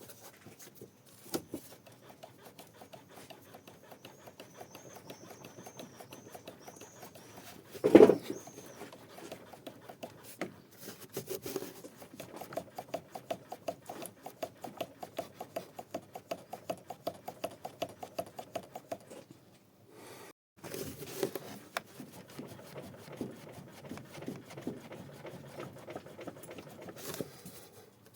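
Skoda Rapid engine running with a rhythmic knocking, about four knocks a second, from a worn right-side engine mount, with one loud thump about eight seconds in.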